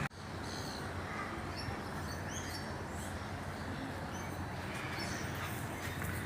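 Steady background ambience with a few short, faint, high chirps that glide upward.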